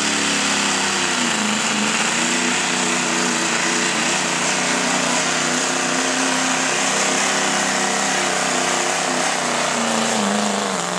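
Diesel pickup truck engine under full load pulling a sled, running steadily at high revs with a loud hiss over it. Near the end the engine note drops as the pull winds down.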